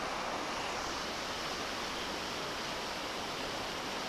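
Steady rush of flowing river water, an even hiss with no distinct events.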